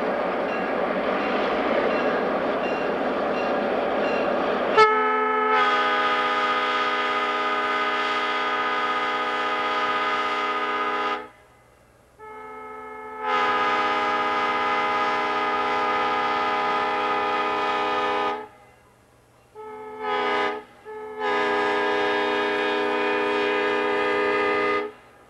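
Air horn of an FP7A diesel locomotive sounding the grade-crossing signal as the train approaches the crossing: two long blasts, a short one, and a final long blast, each a loud chord of several notes. It starts about five seconds in, after a steady rushing noise.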